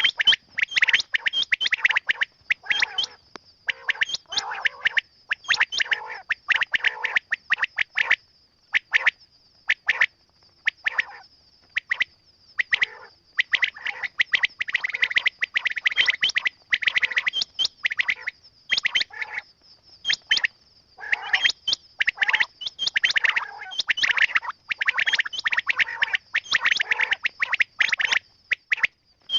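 Quail calling: bursts of rapid chirping calls, one after another with short gaps between them, over a steady faint high whine.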